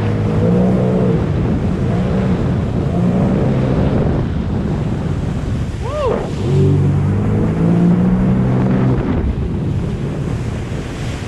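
Sea-Doo Trixx jet ski engine running under way, its pitch rising and falling as the throttle is worked in several surges, with the loudest stretch about two-thirds of the way through. Wind on the microphone and rushing water run underneath, and a short falling chirp sounds about six seconds in.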